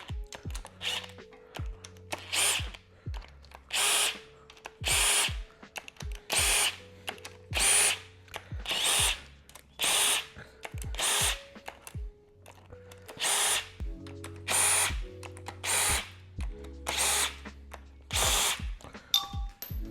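Cordless power tool run in short bursts, about a dozen times roughly a second apart, undoing bolts on a Subaru EJ255 engine being torn down. Background music plays underneath.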